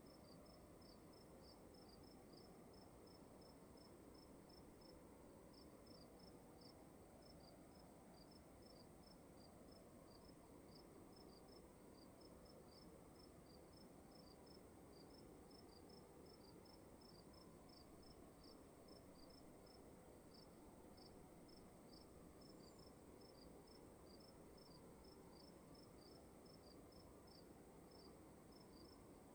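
Crickets chirping faintly in a quiet room: one steady high trill and another cricket chirping in short pulses, about two or three a second, over a low background hush.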